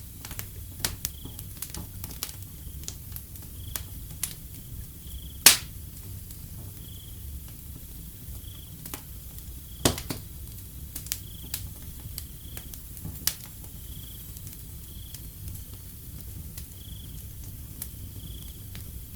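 Wood fire crackling with sharp pops, the two loudest about five and a half and ten seconds in, over a low rumble. A cricket trills steadily behind it, with a high pulse every second or two.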